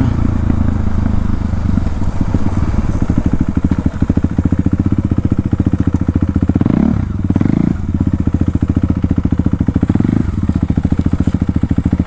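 KTM Duke 390's single-cylinder engine running through an aftermarket exhaust, loud and pulsing at low revs as the bike slows, with two short throttle blips a little past halfway.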